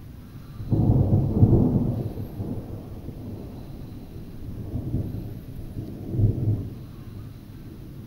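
Thunder rumbling: a long peal that starts suddenly about a second in and fades over a couple of seconds, then rolls again with a shorter swell about six seconds in.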